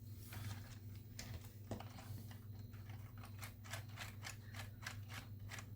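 Faint, rapid, evenly spaced clicking of LEGO plastic gears and wheels as the Bowser Express train is rolled along, driving its geared Bowser mechanism.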